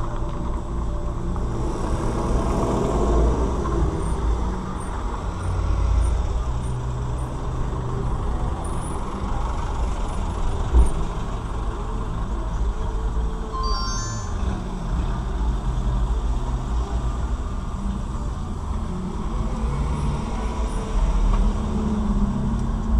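Dashcam recording of city street traffic: a steady low rumble of vehicle engines. A single sharp knock comes about eleven seconds in, and a short run of high chirping tones about three seconds after that.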